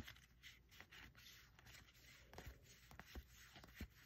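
Faint, irregular swishes of Magic: The Gathering cards sliding over one another as they are flipped through by hand, with a few soft taps.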